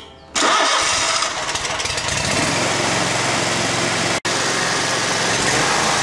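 Riding mower's Kawasaki V-twin engine starting abruptly and then running steadily, settling into an even run after about two seconds. The sound cuts out briefly just after four seconds.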